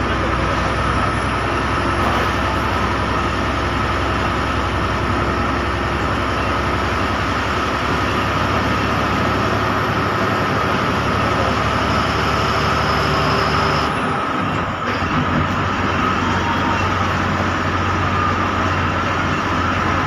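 Steady cabin noise of a bus driving on a wet road: the engine running and the tyres hissing on the wet surface. About fourteen seconds in, the low engine note drops away and the noise eases.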